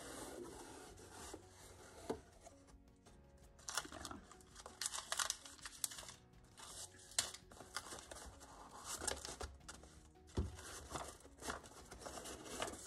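Hands opening a cardboard mailer box and handling its paper-board inserts: a run of irregular rustles, scrapes and crinkles. Quiet background music plays underneath.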